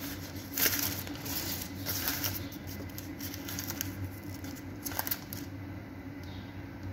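Thin pastry sheets rustling and crinkling as they are handled and laid into a glass bowl, in a few short bursts.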